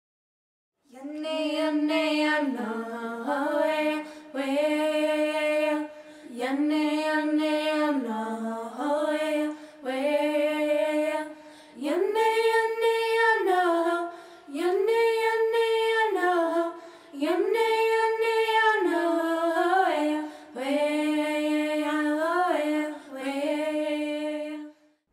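A woman's voice singing alone, unaccompanied, in short phrases with breaths between them. The melody climbs to higher held notes in the middle and then settles back down.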